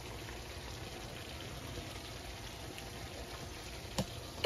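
Chicken karahi simmering in its pan, a soft steady bubbling and sizzling as the oil separates to the top, the sign the curry is nearly done. A sharp clack sounds near the end.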